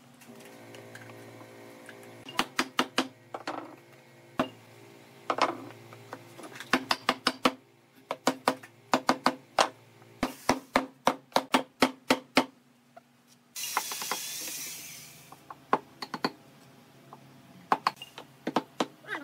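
Wooden mallet knocking pine slats into the slots of a table frame, in quick runs of sharp taps. A brief hiss lasting a couple of seconds comes just past the middle.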